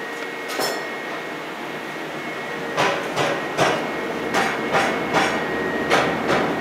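Footsteps on a hard warehouse floor: a quick, even run of sharp taps, about two or three a second, starting about three seconds in, over a steady background hum with a faint high whine.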